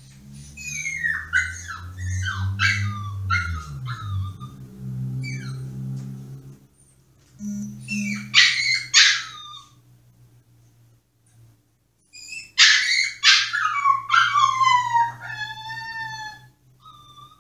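A Pomsky (Pomeranian–husky cross) puppy whining and crying in high-pitched cries that slide down in pitch, in three bouts. The last bout is a long whining howl. It is the distress of a puppy shut in its cage.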